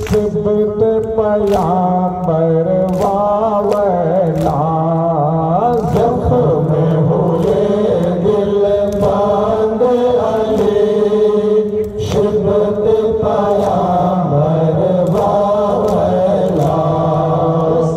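Group of men chanting a noha, a Shia lament for Imam Hussain, in unison, its melody rising and falling in long held lines. Sharp rhythmic strokes about every three-quarters of a second run under it, in keeping with matam, mourners beating their chests.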